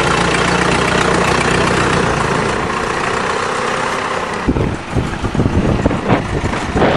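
Engine of an old farm loader tractor running steadily. From about four and a half seconds in, as the machine moves close past, the sound turns rough and uneven, with knocks and rattles.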